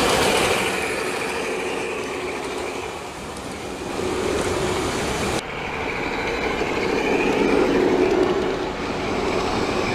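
G-scale model diesel locomotive and passenger cars running along outdoor garden-railway track: a steady rolling noise of wheels on rail and motor. The sound cuts abruptly to a duller, similar running noise about five seconds in.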